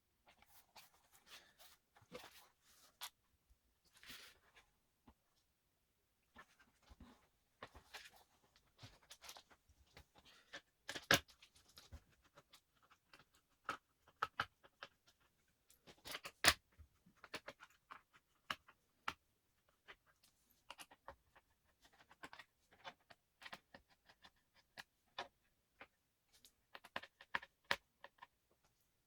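Scattered small clicks, taps and short scrapes of hands working on a Dell Latitude E5470 laptop's casing and parts, with two sharper clicks about 11 and 16 seconds in.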